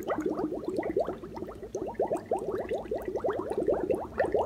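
Air bubbling up from a glass bottle held under hot OxiClean solution: a quick, steady run of short rising bubbling sounds, about six or seven a second.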